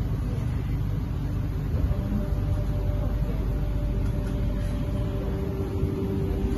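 Cabin sound of a Kawasaki-Sifang C751B metro train pulling away from a station: a steady low running rumble, with a steady motor whine coming in about two seconds in.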